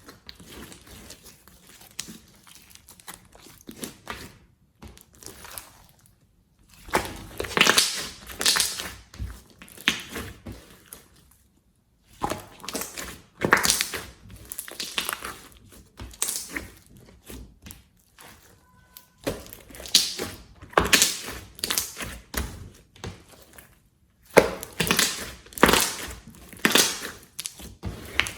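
Slime being squeezed and worked by hand, giving crackly, crinkling squishes in short runs broken by brief silences.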